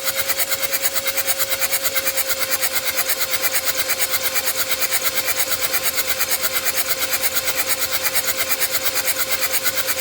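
Starter motor cranking the 2014 Hyundai Santa Fe's engine without a break, a steady whine over rapid, even pulses, and the engine never catches: a crank-no-start.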